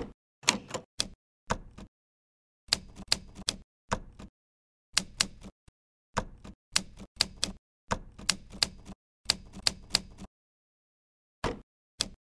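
Simulated typewriter keystrokes from an iPad typewriter app. Sharp key clacks come in quick bursts of a few strokes with short pauses between, and two lone strokes fall near the end.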